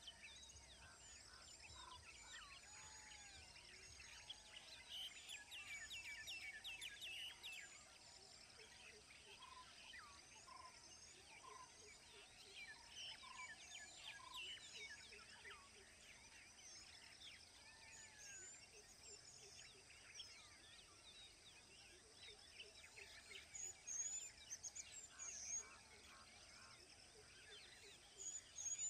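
Faint chorus of wild birds chirping and whistling, including a run of short whistled notes repeated a little more than once a second through the middle. Sharper chirps come near the end.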